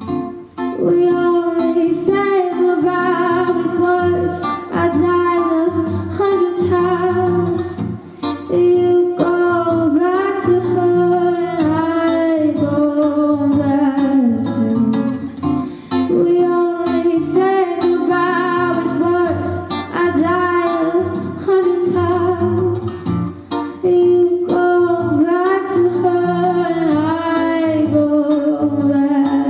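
A woman singing long held and gliding notes over acoustic guitar accompaniment.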